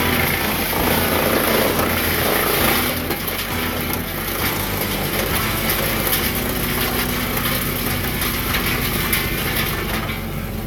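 Woodmaxx 8-inch hydraulic wood chipper's petrol engine running steadily under load as pine branches are fed through and chipped, easing off near the end.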